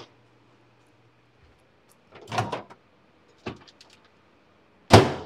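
A door opened with a short swish about two seconds in, a few light clicks, then shut with a sharp thud near the end.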